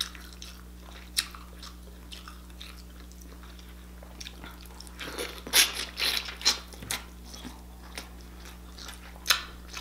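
Close-up eating sounds: biting and chewing sauce-soaked king crab leg meat, short wet clicks scattered through, busiest about five to seven seconds in.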